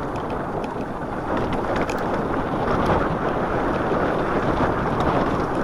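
Wind buffeting the microphone: a loud, steady rush with no break.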